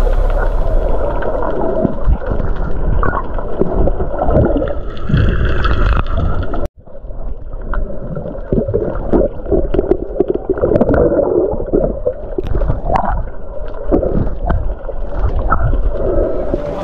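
Muffled water gurgling and bubbling, heard through a camera held underwater, with scattered knocks. The sound drops out suddenly for a moment about seven seconds in.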